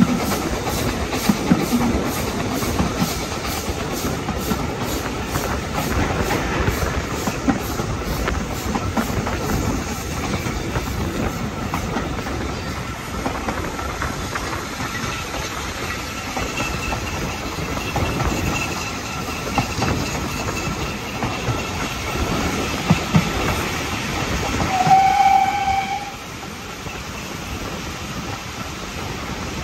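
Heritage steam-hauled train heard from a carriage window: wheels running over the rails with a steady clickety-clack. About 25 seconds in, the locomotive's steam whistle gives one short blast, and after that the running noise drops a little.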